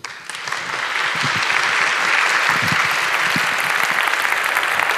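Audience applauding, building up over the first second or so and then holding steady.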